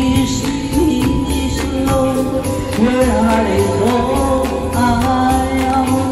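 A woman singing into a handheld wireless karaoke microphone, holding and bending long notes over a backing track with a steady beat.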